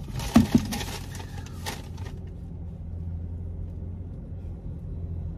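Paper takeout bag crinkling and rustling as it is handled for about the first two seconds, with the sharpest crackles near the start, over a steady low hum inside the car that then carries on alone.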